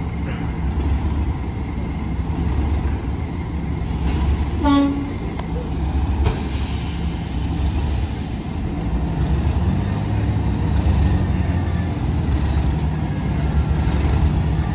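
Class 37 diesel locomotive idling with a steady low engine drone that steps up and grows a little louder about ten seconds in. There is a brief pitched toot about five seconds in.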